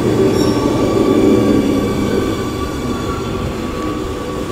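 GVB Amsterdam metro train rolling along the platform and slowing, its running rumble fading over the second half, with thin steady high-pitched tones above it.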